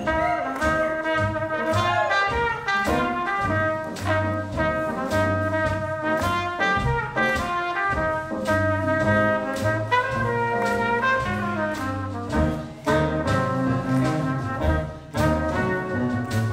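Live swing jazz band playing, with a trumpet carrying the melody over upright bass and drums keeping a steady beat.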